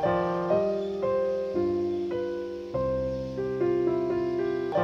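Background piano music: a gentle melody of held notes, changing every half second or so.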